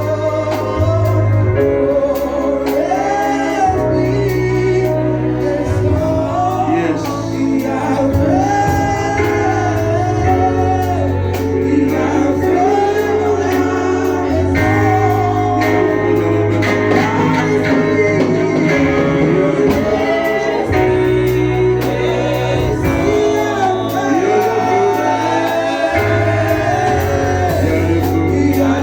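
Gospel worship music: voices singing a slow melody over sustained accompaniment and a bass line that changes note every couple of seconds.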